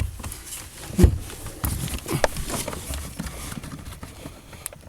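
Hands working at the plastic electrical connectors of a car's heater blower resistor, giving scattered clicks and knocks, with one louder knock about a second in.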